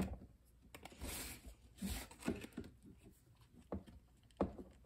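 Faint, scattered clicks and short rustles of hands handling a plastic action figure and its packaging: about half a dozen separate small taps and scrapes.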